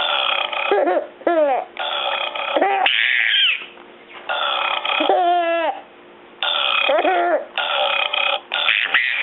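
A run of loud burps, about seven in quick succession, each half a second to a second long, alternating with a baby's short squealing giggles.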